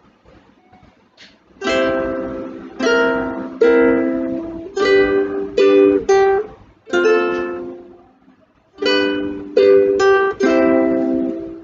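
Instrumental introduction to a children's letter-sound song: a strummed acoustic string instrument plays chords in an uneven rhythm. There are about eleven strums, and each rings and fades before the next.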